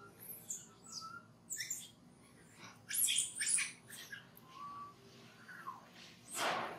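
Baby macaque giving short high squeaks and chirps, with a louder cluster of squeals about three seconds in and a harsh cry near the end, as its mother grabs and pulls at it.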